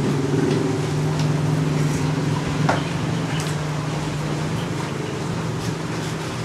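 A steady low hum from a running motor, with a few light clicks and knocks as the plastic frame of a disassembled Epson L120 printer is handled.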